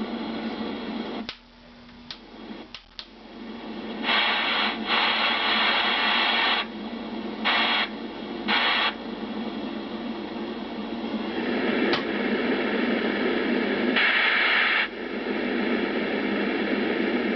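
Madison CB radio's speaker hissing with receiver static. The hiss dips low with a few sharp clicks early on, then swells into louder bursts of static several times.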